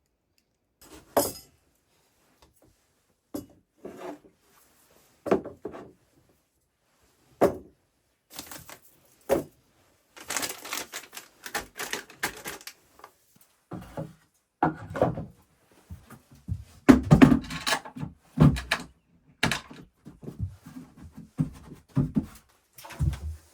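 Irregular knocks and thunks of objects being handled. They come singly every second or two at first, then about ten seconds in turn into a busier run of knocking and clattering.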